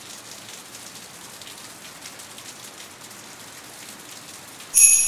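Steady rain falling. Just before the end, a sudden high ringing sound of several clear tones starts sharply and fades away.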